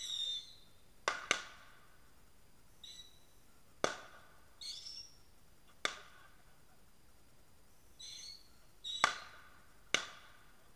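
A burning evergreen Christmas tree crackling: about six sharp pops at irregular spacing, with short, high squealing whistles between them.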